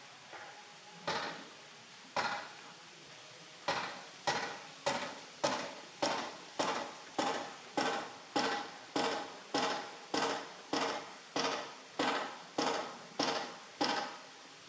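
Something metal struck over and over, each stroke ringing briefly with a clear pitch before dying away. A few scattered strokes come first, then a steady beat of a little under two strokes a second that runs for about ten seconds.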